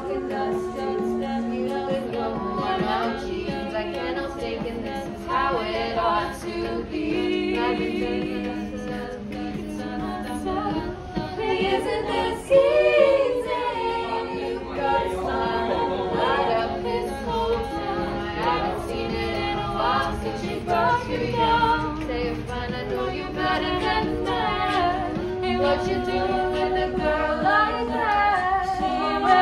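A small vocal group singing a cappella in harmony, several voices holding sustained notes, with a louder swell about twelve seconds in.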